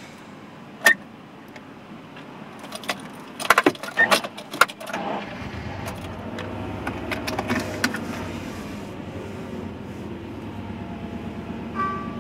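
Keys jangling and clicking inside a car, then about five seconds in the car's engine starts and runs with a low, steady hum.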